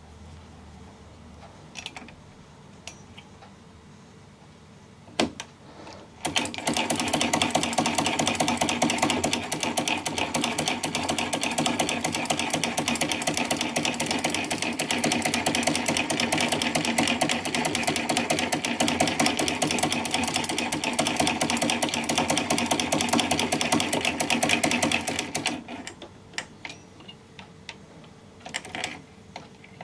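Circa-1947 Essex miniature hand-cranked chain-stitch sewing machine stitching fast: a rapid, even clatter of needle and mechanism that starts abruptly and runs for about twenty seconds before stopping. A few small clicks of fabric handling come before and after it.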